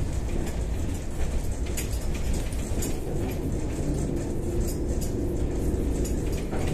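Cabin noise of a Kyiv-12.03 trolleybus running at speed: a steady low rumble from the road and running gear, with frequent small rattles from the body.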